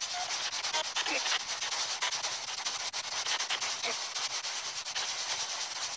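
Spirit box scanning radio stations: a steady hiss of static chopped into rapid flickers, with brief faint fragments of tone coming through.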